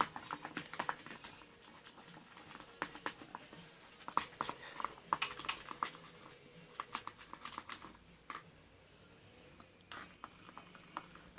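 A stick stirring a glue-and-food-colouring slime mixture in a container, making irregular faint clicks and taps against the container's sides. The taps thin out in the second half.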